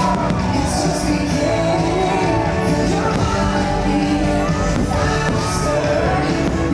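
Loud fireworks-show soundtrack: music with singing.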